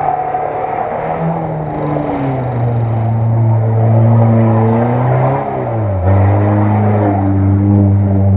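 Lada Niva engine revving hard under load while it drives through deep mud. Its pitch holds steady, then shifts up and down in steps, dropping lower about six seconds in.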